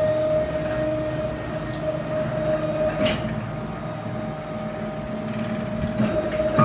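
Large CNC router's drive motors whining steadily as the gantry moves a pen across paper, with a short click about three seconds in.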